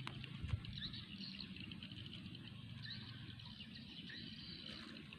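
Faint outdoor ambience with small birds chirping on and off over a low steady rumble, and a short low knock about half a second in.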